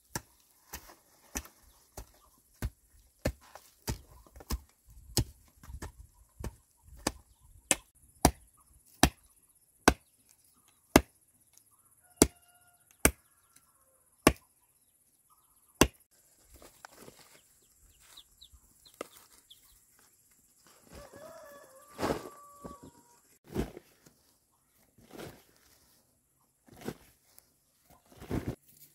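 A hand hoe knocking hard against the ground, sharp knocks about one a second that stop about halfway through. Then come the softer scrape and rustle of dry soil being dug and poured, with a chicken clucking briefly past the middle.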